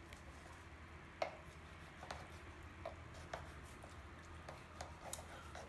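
Kitchen knife working on raw fish on a cutting board: a few scattered light knocks and taps, the sharpest about a second in.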